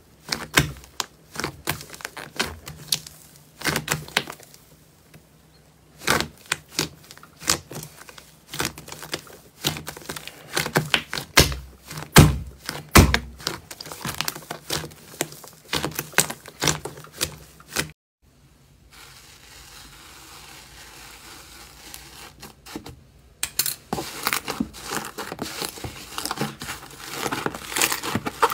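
Hands squeezing and kneading thick pink slime, making dense clusters of sticky clicks and crackling pops. About two-thirds of the way in the clicks stop for a few seconds of softer, steady hiss, then start again.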